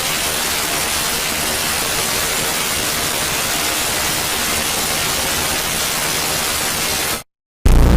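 Steady, loud white-noise hiss, even across all pitches like radio or TV static, which cuts off abruptly about seven seconds in; a louder sound starts just before the end.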